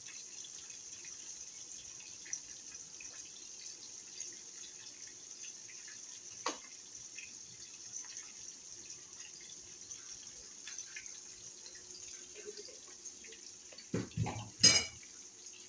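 Oil sizzling with a steady fine hiss and light crackling as batter fries in a kadai. Near the end come a few knocks and one loud sharp clatter of a utensil.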